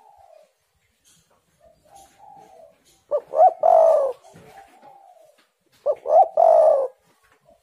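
Spotted dove cooing: two loud phrases, about three and six seconds in, each a couple of short clipped notes running into a longer drawn-out coo. Softer arched coos come before and between them.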